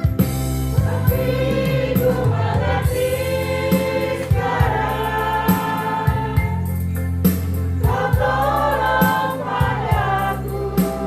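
A group of voices singing a Christian praise song together over instrumental backing with a steady beat and a strong bass.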